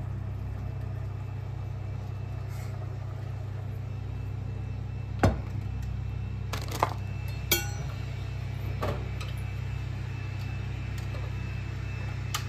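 Knocks and clatter as a silicone trivet and a stainless steel cooking pot are set down on a wooden chopping board: one sharp knock about five seconds in, then a ringing metal clink a couple of seconds later. A steady low hum runs underneath.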